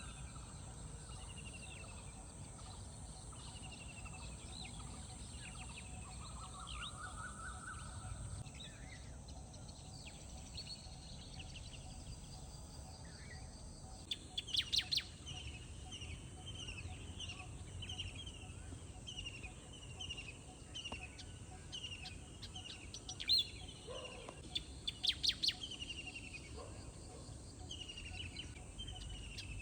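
Several wild birds chirping and singing in the morning: rising whistled notes early on, then a run of short repeated whistled notes about twice a second from the middle onward. Loud, sharp clusters of chirps come in about halfway through and again near the end, over a steady low background rumble.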